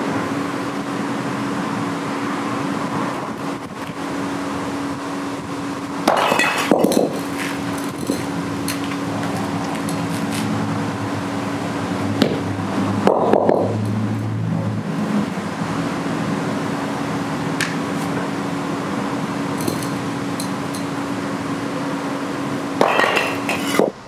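A bowling ball dropped onto concrete cinder blocks topped with insoles, giving sudden hard impacts about 6, 13 and 23 seconds in, one of which cracks a block into pieces. A steady mechanical hum runs underneath.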